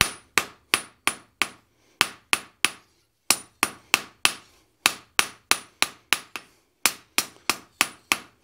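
Hand hammer striking a red-hot bar on an anvil, about three blows a second with a light ring after each and a few brief pauses, drawing the bar out to an even taper.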